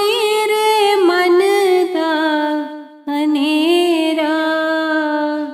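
Devotional shabad singing: a voice holding long drawn-out notes with small ornaments. The first phrase fades out a little before the middle, and a new held note starts about three seconds in.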